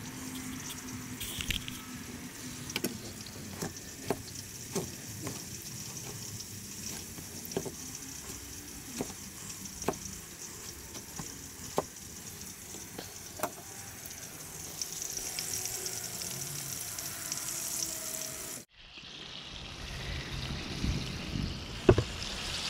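Metal spoons clinking against small bowls over a steady hiss while fish pieces are dipped in egg wash and rolled in crumbs. After a cut near the end, a louder sizzling hiss of fish frying in hot oil, with a few clicks of metal tongs.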